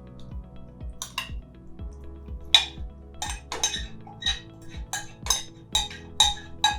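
A metal utensil clinking and knocking against a dish about a dozen times, the strikes coming more often from about two and a half seconds in, as marinated chicken is scooped into a frying pan. Background music with a steady beat runs underneath.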